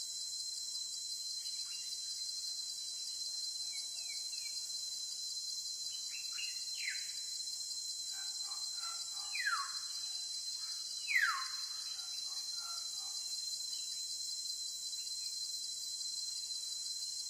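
Steady high-pitched insect buzz, over which a bird gives a few downward-slurred whistled calls in the middle, the last two the loudest.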